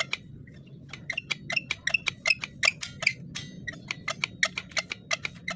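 Rapid metallic clicking and rattling from a motorcycle's rear drum brake assembly, several clicks a second with short pauses: the brake-shoe noise being demonstrated.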